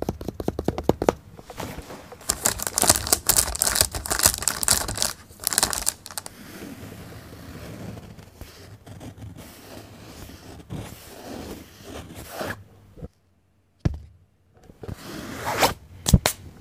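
A run of rapid clicks, then loud bursts of tearing, crumpling noise that die down to softer scratchy rustling, broken near the end by abrupt silent gaps and one last burst.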